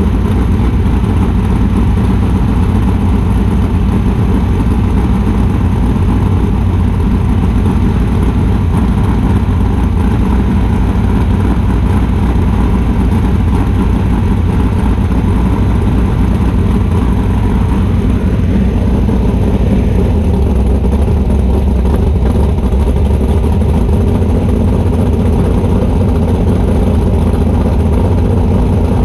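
Rock-racing buggy's engine running loud and steady at idle while the car stands still. About two-thirds of the way through, the note deepens a little.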